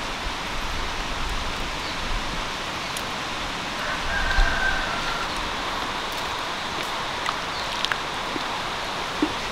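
Steady hiss of running water outdoors, with a rooster crowing faintly once about four seconds in and a few light clicks of tongs and a knife against the bowl.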